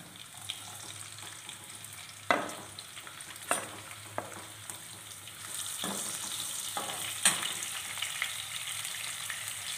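Chopped green chillies sizzling in hot oil in a nonstick kadai, with a few sharp knocks from a metal slotted spoon against the pan. The sizzle grows louder about halfway through.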